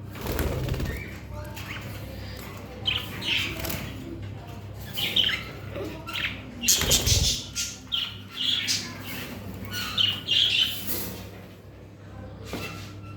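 Pied budgerigars chirping and squawking in many short, scattered calls, with louder bursts of wing flapping about half a second in and again around seven seconds in.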